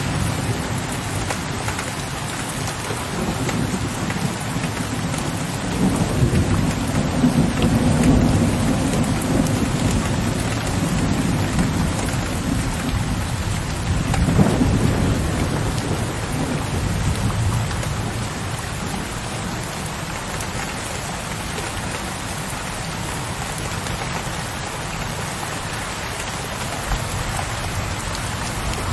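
Steady rain falling on a window ledge, with low, distant thunder rolling: the rumble swells through the first third and a fresh roll begins about halfway, then fades, leaving only the rain.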